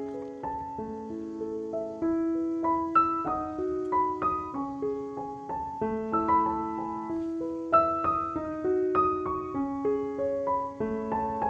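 Background piano music: a melody of single struck notes, a few each second.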